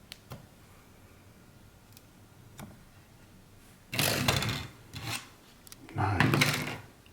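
Hands handling PC parts on a workbench: a few light clicks, then from about four seconds in, three bursts of rubbing and scraping, the last and longest near the end.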